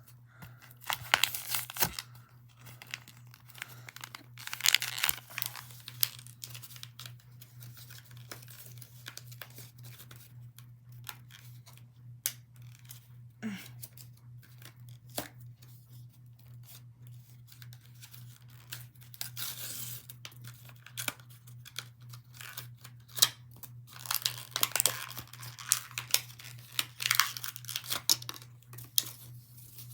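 Toy packaging being torn open and crinkled, in several rustling bursts with scattered clicks and taps between them, over a steady low hum.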